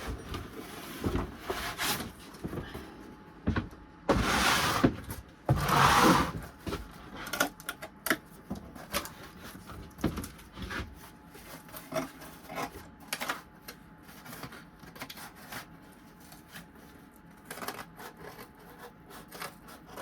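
Rustling and handling of a sink template with scissors: two loud rustles about four and six seconds in, then scattered light clicks and taps.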